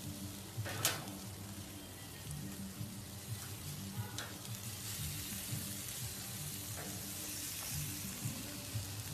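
Chicken sizzling on a charcoal barbecue grill: a steady hiss and crackle, with one sharp click a little under a second in.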